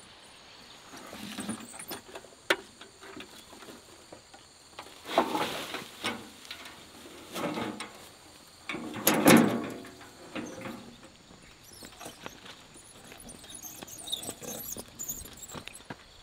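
A wheelbarrow tipped to dump a load of leaves and weeds: rustling and scraping with knocks of the barrow, in several bursts, the loudest about halfway through.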